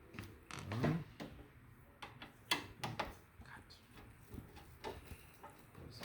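Scattered light clicks and taps of a screwdriver working the screws that hold the power supply in a desktop computer case.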